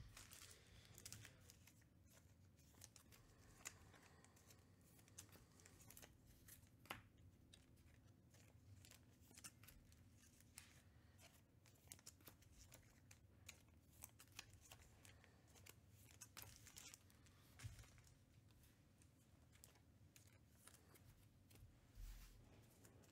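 Near silence with faint, scattered rustles and light clicks of trading cards and their paper and plastic packaging being handled, and a soft low thump near the end.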